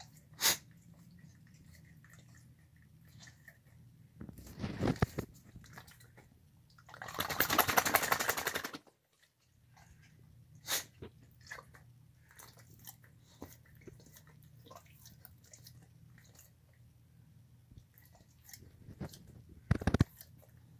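A dog licking and chewing the last of its food out of a bowl: wet smacks and sharp clicks of tongue and teeth come and go. A denser, rougher stretch lasts about a second and a half near the middle, and there are two loud strokes near the end.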